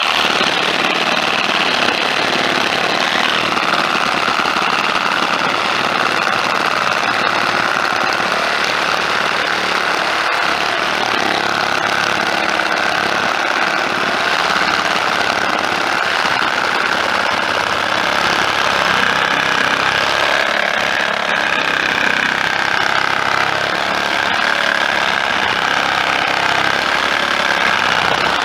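A power saw running continuously: a loud, steady mechanical noise that starts abruptly.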